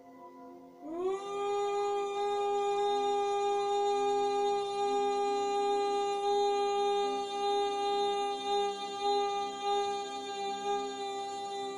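A woman humming one long note on the out-breath in bhramari (humming bee breath) pranayama. It starts about a second in with a quick upward slide, then holds one steady pitch for about ten seconds over soft background music.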